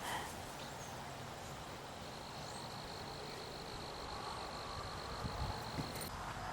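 An insect's steady, high-pitched trill, starting about two seconds in and stopping shortly before the end, over faint outdoor background noise.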